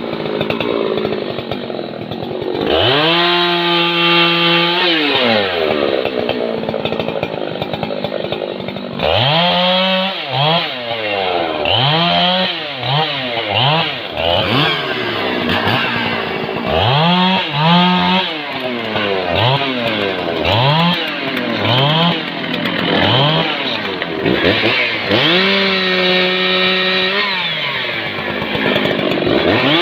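Husqvarna 3120XP, a large two-stroke chainsaw, cutting a felled rain tree. The engine runs at steady full throttle for a few seconds, labours through the wood, and for much of the time revs up and drops back about once a second as the bar bites in.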